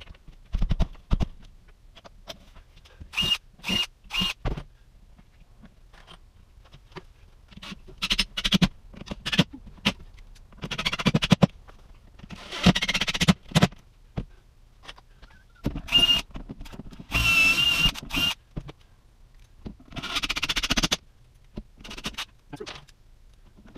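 Cordless drill running in a series of short bursts, a second or so each, drilling into and driving screws through wooden cabinet face frames. Clicks and knocks of clamps and tools being handled come between the bursts.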